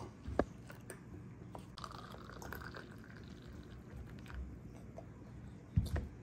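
Hot water being poured into small plastic containers, from a plastic measuring cup and from a metal pot. There is a sharp knock about half a second in and a heavier dull thump near the end.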